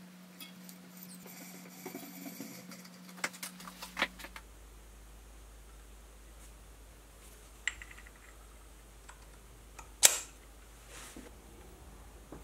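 Faint clicks and small metallic taps of hand work on a steel part: a T-handle tap wrench threading grub-screw holes, then the steel cutter holder being handled, with a short ringing clink about eight seconds in and a sharper knock about ten seconds in. A steady low hum runs under the first four seconds.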